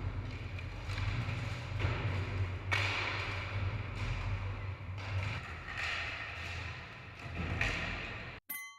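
Skateboard wheels rolling with a steady rumble, broken by several sharp clacks and thuds of the board.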